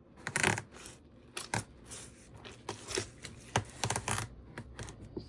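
Knife cutting open a watermelon: an irregular run of short, sharp crunches and taps as the blade goes through the rind.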